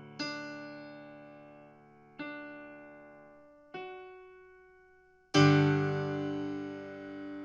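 Piano playing slow, separate notes or chords. Each is struck, left to ring and fades away, three of them about two seconds apart. A louder, fuller chord comes about five seconds in and is held ringing.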